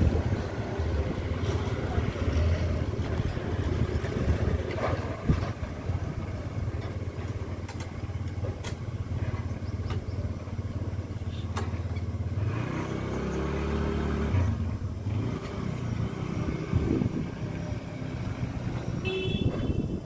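Motor scooter engine running as the scooter pulls away and rides off down the street. A few sharp clicks come through.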